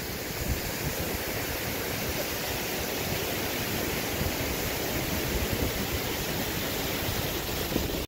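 Steady rush of falling and flowing water from a waterfall and the rocky stream below it.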